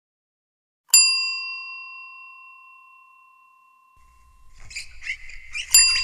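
A bell-like notification ding struck about a second in, ringing on and fading over about three seconds. Near the end there is a short scratchy rustle, then a second ding.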